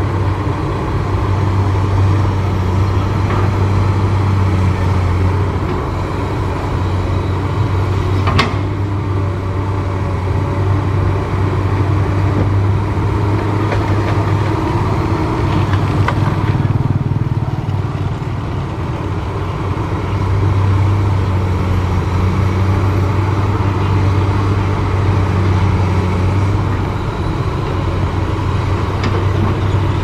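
Komatsu hydraulic excavator's diesel engine running steadily, working harder in two stretches as the hydraulics load it, with a single sharp clank about eight seconds in.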